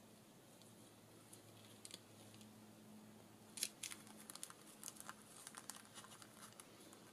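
Faint rustling and crinkling of paper, with small crisp clicks, as hands tie and adjust twine around a paper pocket. The handling sounds come mostly in a run from about halfway through, over a low steady hum.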